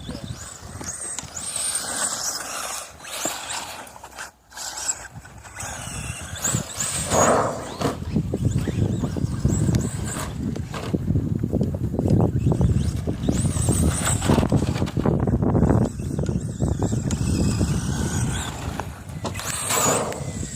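Electric motor of a Team Associated SC10 radio-controlled short-course truck, whining up and down in pitch as the throttle is worked, over crunching tyre noise on loose dirt. The motor briefly goes quiet about four seconds in.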